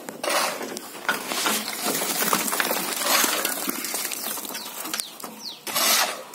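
Building-site clatter: scattered clinks, taps and scrapes of tools on brick and masonry, with a few short falling chirps in the second half.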